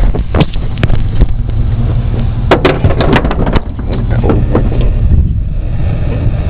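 Steady low engine rumble, with a run of knocks and clattering in the first few seconds that fades out after about four seconds.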